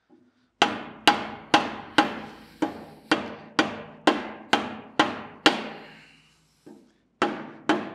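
Mallet blows driving a 3-inch mild-steel exhaust pipe up onto a hand blower's cast-iron outlet. There are about eleven steady blows, roughly two a second, each leaving the steel pipe ringing briefly. After a short pause come one light tap and two more blows near the end.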